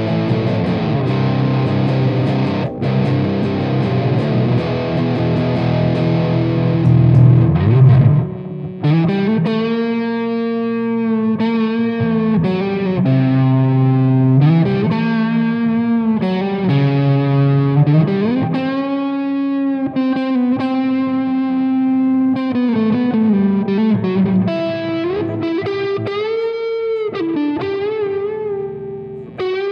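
Canalli baritone Telecaster-style electric guitar played through distortion. For about the first eight seconds it plays a dense, distorted chord passage, then a lead line of long sustained notes with pitch bends and vibrato.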